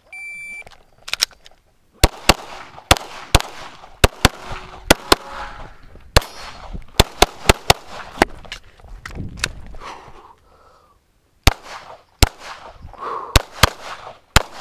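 An electronic shot-timer start beep, then a Glock pistol firing a long string of shots in quick pairs and singles, with a pause of about two seconds past the middle before the firing resumes.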